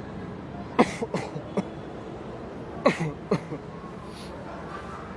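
A person coughing in short bursts: three coughs about a second in, then two more near three seconds in.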